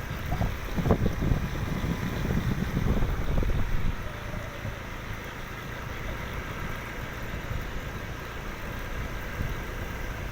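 Wind buffeting the microphone in irregular low gusts for the first few seconds, then settling into a steady low rumble.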